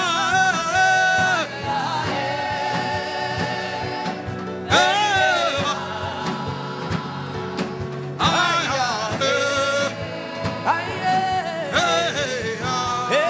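Gospel worship music: a singer holds long, wavering notes in phrases that start about every four seconds, over sustained keyboard chords and a steady drum beat.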